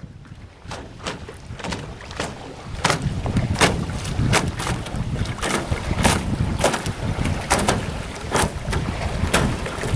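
Wind buffeting the microphone on open lake water, with short splashes of water slapping against a small boat about once or twice a second. The wind rumble grows louder about three seconds in.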